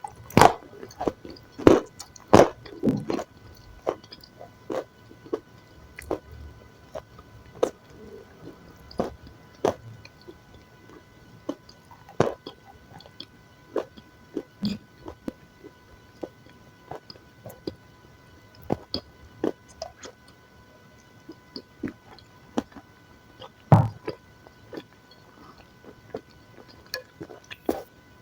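Close-miked chewing and biting of food, a long irregular run of sharp wet clicks and crunches. The loudest bites come in the first few seconds and again at about 24 seconds in.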